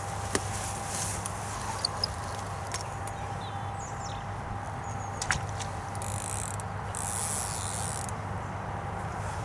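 Steady low outdoor hum with faint bird chirps, and a few sharp clicks from a fishing rod and reel being handled. A brief airy hiss comes about six seconds in.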